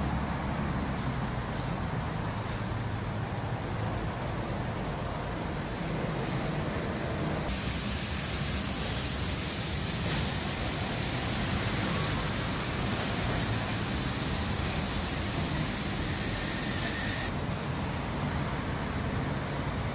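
Car-wash bay with a car creeping in: a steady low rumble of the car and wash machinery. A loud, even hiss of air or spray cuts in abruptly about a third of the way through and cuts off suddenly about ten seconds later.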